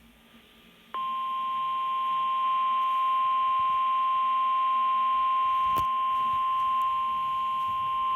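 NOAA Weather Radio warning alarm tone: one steady, piercing beep-like tone that starts suddenly about a second in and holds without change. It is the attention signal that comes just after the EAS data bursts and before a weather warning is read.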